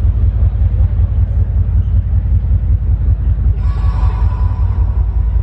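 Loud, deep rumbling bass of a runway show soundtrack over the venue's speakers, recorded on a phone; a brighter droning layer joins it about three and a half seconds in.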